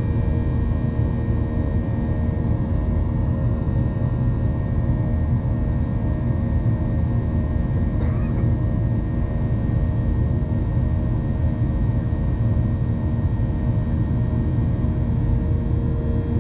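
Cabin noise inside a Boeing 737-800 climbing after takeoff: the steady roar of its CFM56-7B engines and the airflow, with a steady hum of several fixed tones.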